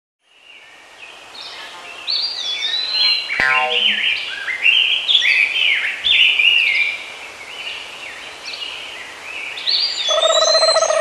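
Birds chirping and singing, many short sliding calls overlapping, fading in from silence at the start. A lower call joins near the end.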